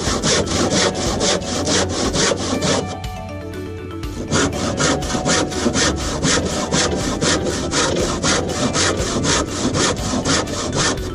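Saw cutting through the old timber capping rail in quick, even strokes, about three a second, with a short pause about three seconds in.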